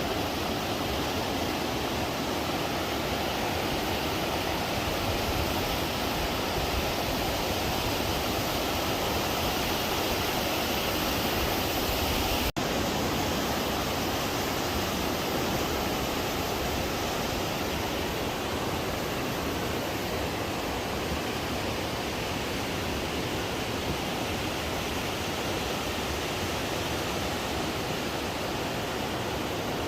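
Rushing river water, a steady, even rush of noise that cuts out for an instant about twelve seconds in.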